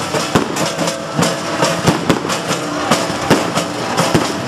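Fireworks going off overhead: a rapid, irregular run of bangs and crackles, about three a second.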